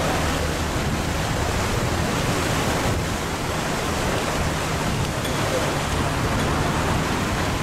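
Floodwater rushing and splashing along the side of a bus as it ploughs through the flooded street, with the low, steady hum of the bus's engine underneath.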